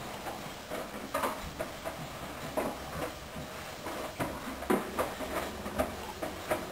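Hoover DYN 10124DP front-loading washing machine in its main wash, a full 10 kg load of wet sheets and water sloshing in the turning drum, with irregular soft knocks and splashes over the low hum of the motor.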